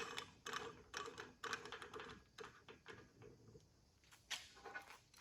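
Faint, irregular clicks and knocks of metal parts being handled: an AC hose and its fitting being settled in an AC hose crimper's dies.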